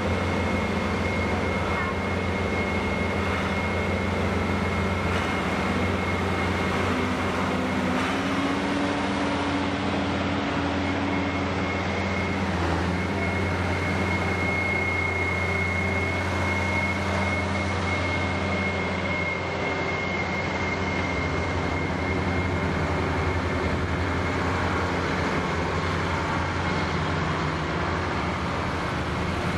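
Diesel farm tractors running as they drive slowly past one after another, a steady engine drone. A high steady whine runs through it and is strongest about halfway through, as a large four-wheel-drive Case tractor goes by.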